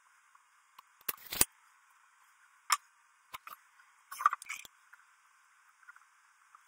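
Scattered light clicks and knocks of lumber and tools being handled on a wooden workbench. There is a small cluster about a second in, single knocks near three seconds, and a few more around four seconds in, with near quiet between them.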